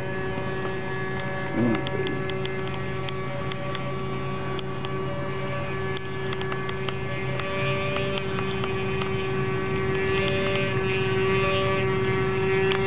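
Radio-controlled model boat's motor running with a steady whine, growing gradually louder toward the end as the boat comes closer.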